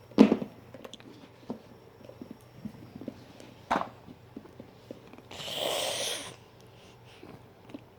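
Quiet handling noises: a sharp click at the start, light ticks and knocks, a second sharp click a little before the middle, and a one-second hiss a little past the middle.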